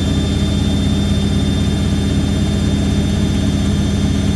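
Hoover A3190 Electron 1100 De Luxe front-loading washing machine on its 1100 rpm spin, motor and drum running at full speed with a loud, steady hum over a fast low pulsing rumble. The machine has settled down at top speed after the wilder shaking at 800 rpm.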